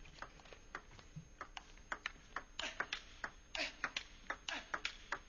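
Table tennis rally: a celluloid ball struck back and forth by rubber-faced bats and bouncing on the table, a run of sharp, light pocks a few times a second.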